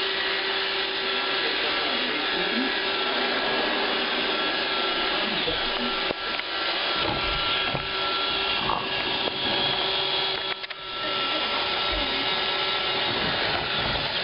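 Roomba robot vacuum running: a steady motor-and-brush noise with a constant whine.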